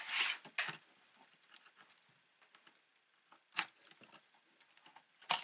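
Small clicks and scratches of a laptop RAM stick being worked out of its slot in an iBook G3, with a sharp click about three and a half seconds in and another near the end as the module is freed.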